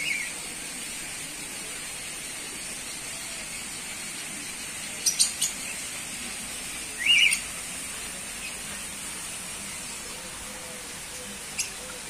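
Small caged parrots, cockatiels and budgerigars, giving a few short, sharp calls over a steady high hiss. There is a small cluster of calls about five seconds in, and the loudest call comes about seven seconds in.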